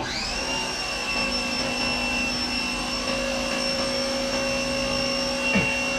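A steady, multi-toned machine whine that winds up in pitch as it starts, holds steady, then winds down as it stops near the end.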